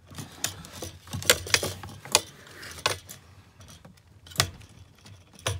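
Metal screwdriver clicking and scraping against the plastic clip tabs on the stock fuel pump's top flange of a BMW 335i while prying to release them. Irregular sharp clicks come about every half second, loudest about a second in and again about four seconds in.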